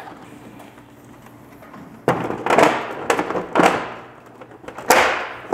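Plastic housing of a mini-split indoor unit scraping and knocking against the wall and its steel mounting plate as it is hung, in about five short rasping strokes starting about two seconds in.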